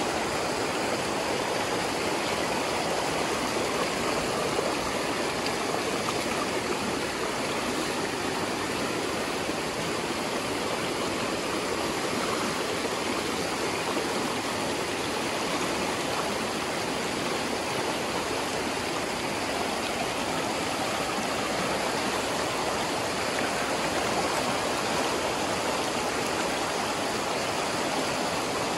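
Flowing river water rushing steadily, an even, unbroken noise with no pauses.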